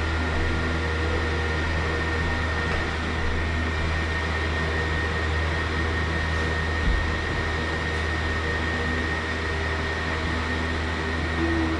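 Steady motor hum: a low drone with a thin, high, steady whine over it, unchanging in level.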